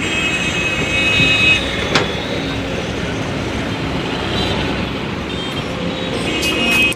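Kobelco SK210 excavator's diesel engine running steadily under working load, with high thin squeals coming and going and a single sharp knock about two seconds in.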